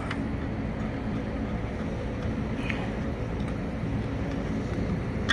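Steady machinery hum and rush of a running rooftop HVAC unit, with faint steady tones in it.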